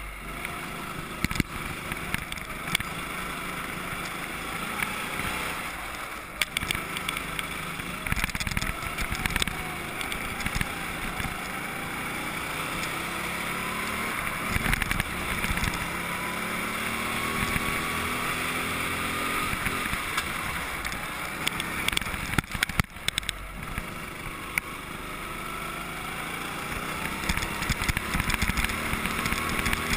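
Go-kart running at speed through laps, its pitch climbing and falling again and again as it accelerates and slows, with scattered sharp knocks and rattles from the chassis.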